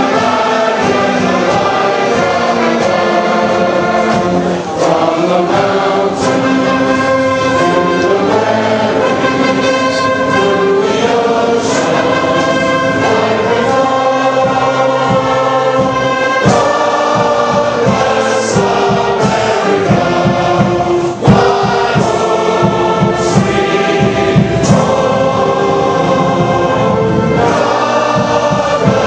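Young men's choir singing a patriotic song with a band accompanying, brass among the instruments.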